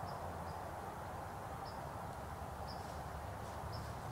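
Faint woodland ambience: a steady low hiss, with a short, high chirp from a small animal about once a second.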